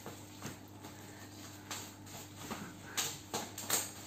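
Plastic parcel wrapping rustling and crinkling as it is handled and pulled at, in a few short bursts, the loudest ones close together near the end, over a faint steady hum.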